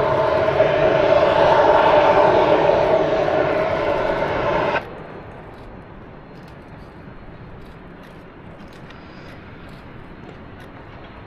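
Steam whistle of a K-36 2-8-2 narrow-gauge locomotive, No. 480, sounding one long, steady, multi-toned blast that cuts off sharply about five seconds in. After it there is only a faint, even background hiss.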